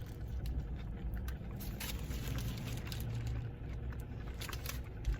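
Chewing a mouthful of a biscuit sandwich: scattered small wet mouth clicks over a steady low background rumble.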